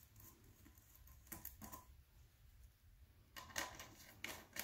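Faint clicks and light metallic taps of small pillar stubs being handled and threaded onto a brass clock movement plate: a couple of clicks about a second and a half in, then a quick run of them near the end.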